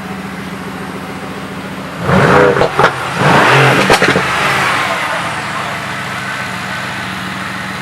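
Mercedes-AMG GT R's twin-turbo 4.0-litre V8 idling, then blipped twice in quick succession about two seconds in, with a few sharp exhaust cracks among the revs, before settling back to a steady idle.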